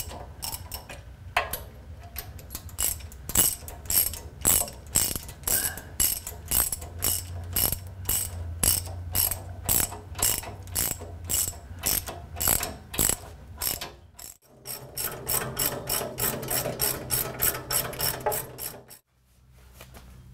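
Hand ratchet wrench clicking as bolts holding a lathe bed to its pedestal are run in by hand, at about three clicks a second, then in quicker, denser strokes after a brief pause, stopping near the end. The bolts are being snugged by hand so that none galls or cross-threads before they are pulled down tight with an impact wrench.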